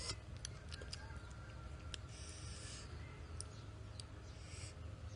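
Fingers handling and peeling a small fruit: faint scattered clicks, with a short soft rustle about two seconds in and another near the end.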